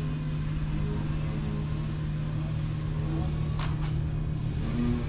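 Background music with a deep, steady bass and shifting low notes.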